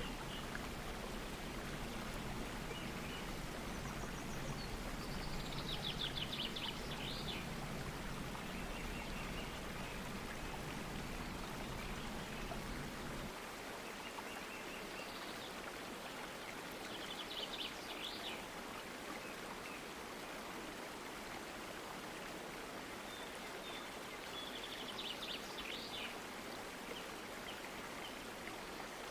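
Water of Karekare Falls running steadily, with a bird giving a short, rapid high call three times over it. A low rumble under the water stops about halfway through.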